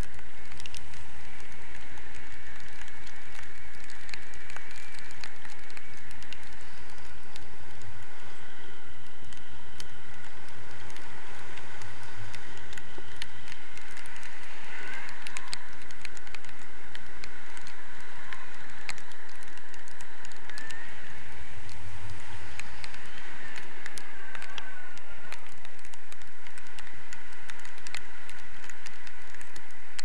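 Wind rushing over an action camera's microphone in paragliding flight, a steady noise with constant crackling and rattling clicks.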